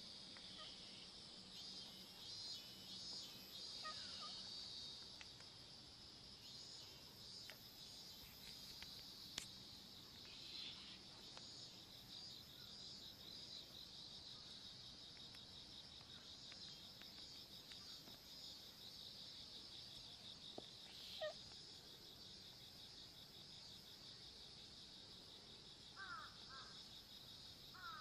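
Faint, steady, high chirring of insects, with a few short high chirps near the end.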